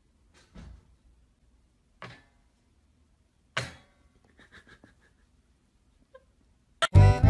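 Metal wire crate door knocking against its frame three times, about a second and a half apart, with some lighter rattles, as a puppy tugs at the latch with its mouth. Loud music starts just before the end.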